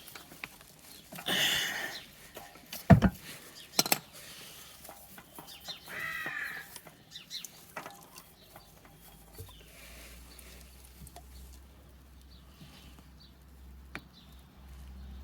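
Scattered knocks and handling noise as the loosened oil filter is unscrewed by hand, with a sharp knock about three seconds in and another about a second later. A bird calls once in the background around six seconds in, and a faint low hum comes in past the middle.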